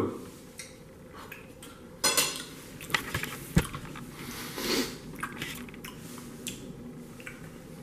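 Metal fork clinking and scraping on a ceramic plate of pan-fried fish fillets. There are several sharp clinks between about two and four seconds in, then softer scattered ticks.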